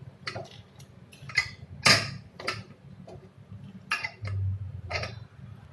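Irregular metal clicks and knocks from handling a stovetop pressure cooker's lid, handles and whistle weight while it is being opened after cooking, with the loudest knock about two seconds in.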